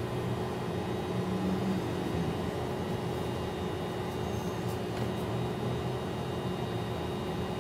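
A steady mechanical hum with hiss, a continuous drone like a fan or air conditioner running, unchanging throughout.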